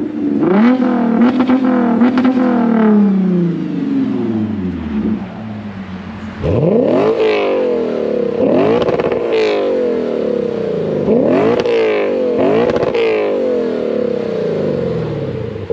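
Car engine revved hard while standing: one long rev that falls away over a few seconds, then about five quick rev blips, each rising fast and dropping back.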